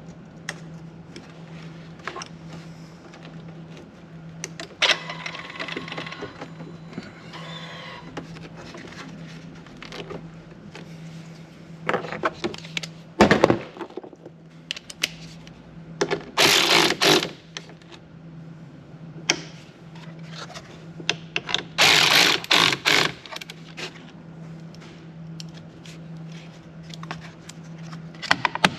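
Cordless ratchet running in two short spins of about a second each, tightening the battery terminal nuts on a 2019 Ford Ranger, among scattered clicks and clanks of hand work and a steady low hum.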